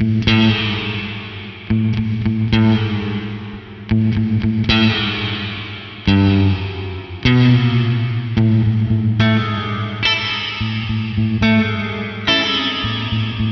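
Electric guitar played through an EarthQuaker Devices Astral Destiny octave reverb pedal: chords struck about once every second or so, each ringing on into a long, washy reverb tail that overlaps the next.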